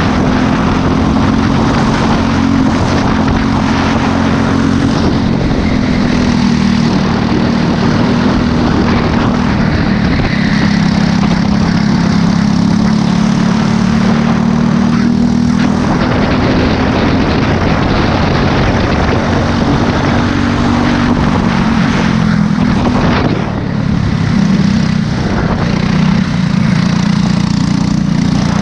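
Briggs & Stratton LO206 single-cylinder four-stroke kart engine running hard, heard close from onboard. Its pitch falls and climbs back several times as the kart slows for corners and accelerates out.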